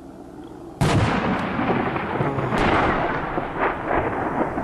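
Barrel bomb exploding: a sudden blast about a second in, then a long rumble that goes on.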